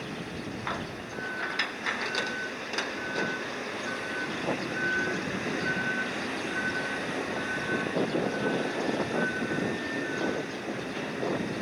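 Warning beeper of cargo-handling machinery sounding about eleven times at a steady pitch, a little under a second apart, over a steady machinery drone, with a few sharp metallic clanks near the start.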